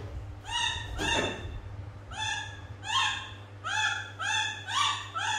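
A little monkey giving a quick string of short, high-pitched calls, about two a second, each rising sharply and then holding its pitch. A steady low hum runs underneath.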